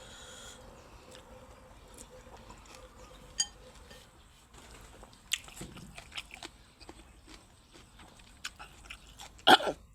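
Someone eating a bowl of Thai boat noodles: chewing, with scattered small clicks and knocks and one louder sharp clack near the end.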